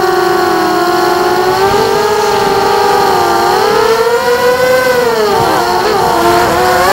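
FPV quadcopter's electric motors and propellers whining loudly in flight, the pitch gliding up and down with the throttle; around five seconds in, the tones of the separate motors split apart and waver as the throttle changes quickly.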